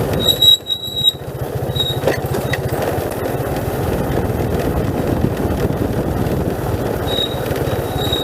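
Motorcycle engine running steadily, with a high-pitched brake squeal that comes in near the start, briefly again about two seconds in, and from about seven seconds on, typical of braking on a steep downhill road.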